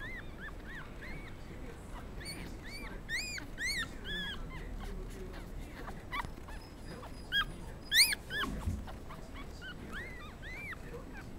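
Newborn Pomeranian puppies squeaking and whimpering: short, high, rise-and-fall squeaks scattered throughout, some in quick runs of two or three, the loudest about eight seconds in.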